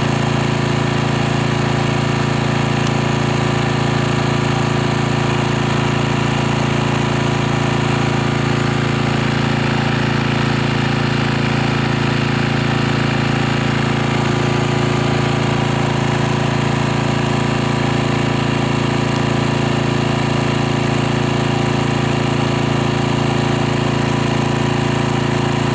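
Kubota portable generator's engine running steadily at constant speed, an even hum with no change in pitch or level.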